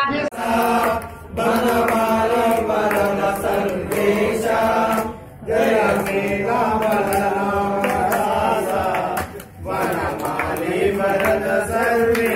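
Men chanting a Hindu devotional hymn, led by a man singing into a microphone. The chant runs in long held phrases with short breaks about every four seconds.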